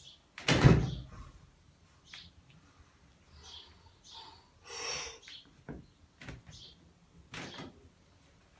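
A barbell loaded with about 232.5 kg of bumper plates knocking on a platform as a lifter grips it and sets up for a deadlift. There is one loud clunk about half a second in, then smaller knocks and short breaths.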